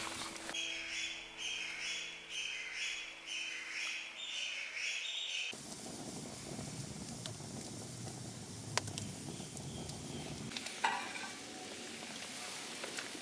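Wood fire burning under a cooking pot: a steady hiss with a few sharp crackles and pops. It follows a high pulsing sound, about two pulses a second over a low steady hum, which cuts off abruptly about five seconds in.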